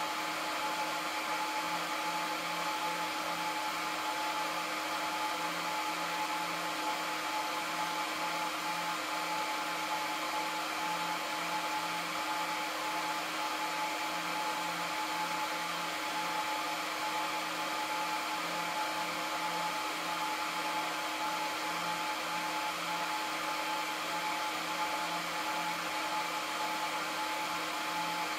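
Cooling fans of an Aruba S3500-48P PoE switch running steadily while it boots: an even whoosh of air with a constant high whine and a lower hum.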